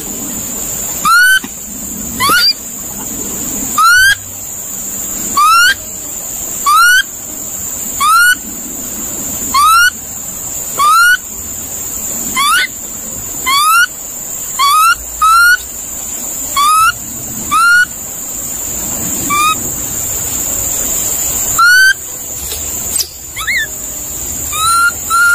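Monkey calling: a long series of short, sharply rising whistle-like calls, one about every second to second and a half, over a steady high-pitched whine.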